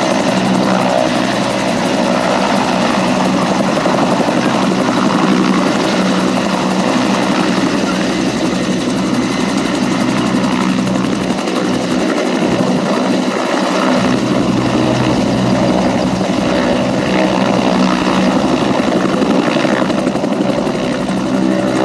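Helicopter's engine and two-blade main rotor running loud and steady as it hovers low and settles to land.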